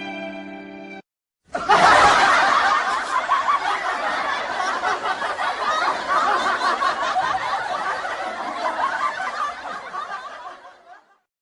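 Stock sound effect of a crowd laughing, a dense wash of many laughing voices that starts suddenly and slowly fades away, after the last note of a sad violin clip cuts off about a second in.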